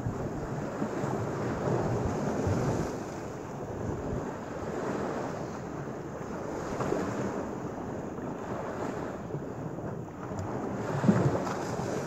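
Lake Michigan surf: small waves washing in and splashing against a rusted steel sheet-pile groyne in surges every few seconds, with wind buffeting the microphone. A louder splash comes near the end.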